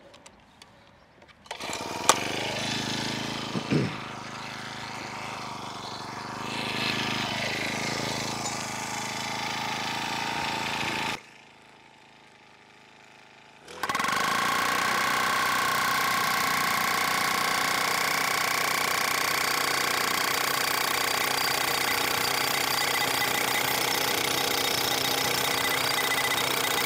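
Petrol-engined post driver starting up about a second and a half in and running at changing speed. After a short quiet gap it runs at a steady high speed, hammering a 100 mm (4-inch) wooden post into the ground.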